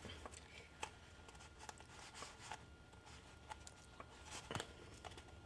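Faint handling sounds: scattered small clicks and rustles of hands on an upturned plastic cheese mold and paper towels while soft cheese is eased out, with one slightly louder click near the end.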